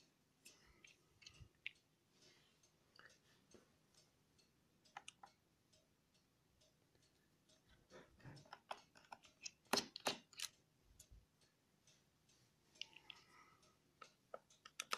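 A small screwdriver turning out the screws of a laptop's bottom panel: faint scattered clicks and scrapes of the bit in the screw heads, with a quick run of louder clicks about eight to ten seconds in.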